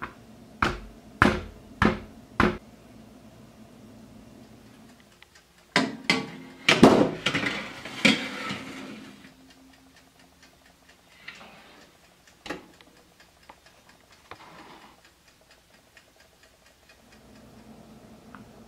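Four sharp knocks about half a second apart as a silicone baking mold is handled on a table. About six seconds in comes a louder clatter of knocks and rattling with a short rush, typical of a tray going into an oven and the oven door shutting. A few faint clicks follow.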